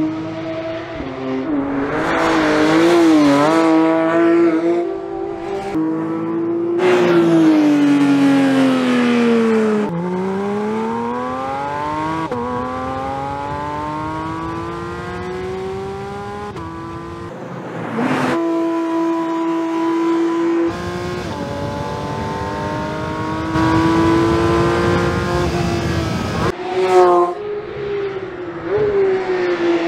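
Porsche 911 GT3 (992.1 and 992.2) 4.0-litre naturally aspirated flat-six engines at speed on track, in a run of edited clips. The engine note revs up through the gears, drops in pitch as the car slows, and then climbs again under hard acceleration.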